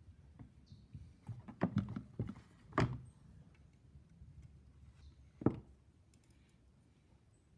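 Small parts and tools being handled: a cluster of light clicks and knocks, the loudest about three seconds in, and one more knock about five and a half seconds in.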